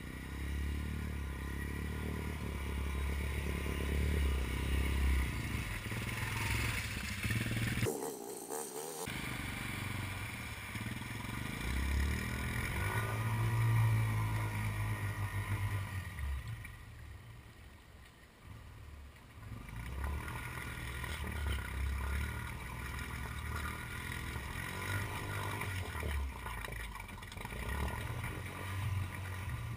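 Honda ATV engine revving and idling as the quad churns through deep muddy water. The sound cuts out sharply for about a second a quarter of the way in, is loudest around the middle, and drops low for a couple of seconds before the engine picks up again.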